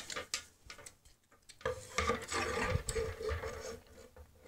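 Wire coat hangers being pushed along a wardrobe rail, scraping and rattling against the rail and each other for a couple of seconds after a short pause.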